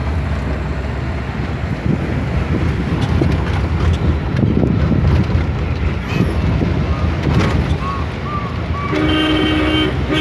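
Engine and road rumble from an open-topped car driven along a rough country road, with wind noise. About nine seconds in, a horn sounds one steady honk lasting about a second.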